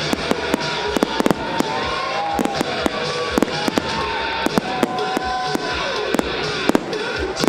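Fireworks display going off in rapid succession: many sharp bangs and crackles, several a second, with no pause between them.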